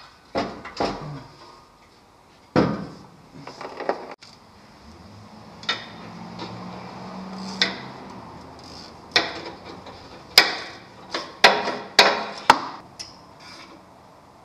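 Metal hand tools clinking and knocking against a truck's underside as a mechanic works on it from a creeper: scattered single knocks, with a quick run of sharper ones near the end.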